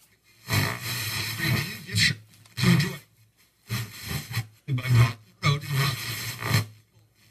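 An Andy's Box ghost box putting out choppy bursts of garbled, voice-like sound, each under a second long, broken by short gaps. The user hears the words 'Tell Beth' and 'And by Rock Rodeo' in it and takes them for a message from his late father.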